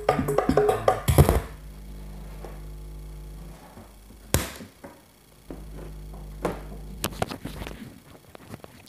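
Music playing through a Lawega active speaker cuts off about a second in as the RCA input plug is pulled, leaving a steady low hum from the amplifier. A few sharp clicks and knocks from the loose cable being handled break in later.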